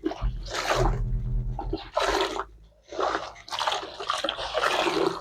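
Water splashing and sloshing in a basin as clothes are scrubbed and rinsed by hand, in three or four swishes, over a low steady hum.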